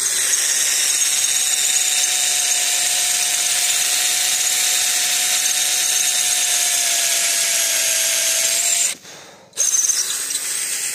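A 12 V DC cordless drill runs steadily as it drills under firm pressure, its motor whine sagging slightly in pitch. It stops briefly near the end, then runs again.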